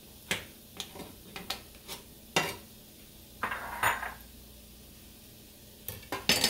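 Metal utensils clinking and scraping against a frying pan as sliced mushrooms are stirred. There are about half a dozen sharp clinks in the first two and a half seconds and a short scrape about three and a half seconds in. A few louder clinks come near the end.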